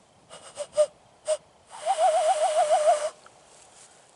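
Hand whistle blown through cupped hands. A few short breathy puffs, some catching a brief note, then a wavering note of about a second over a rush of breath, its pitch fluttering up and down about six times a second.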